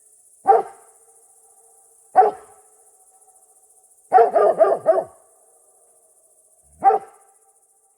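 A dog barking: two single barks, then a quick run of about five barks, then one more near the end.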